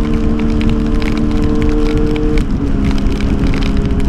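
Yamaha FZ6 Fazer's 600 cc inline-four engine running at steady revs over road and wind noise. Its note drops to a lower steady pitch about two and a half seconds in.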